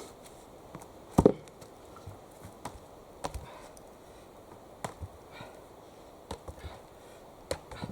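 Axe striking wood: one loud chop about a second in, a second lighter blow a couple of seconds later, then a few faint knocks and ticks.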